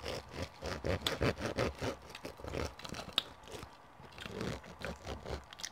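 Close-up eating sounds: chewing, with knives and forks scraping and clicking irregularly on plates as eggs and toast are cut.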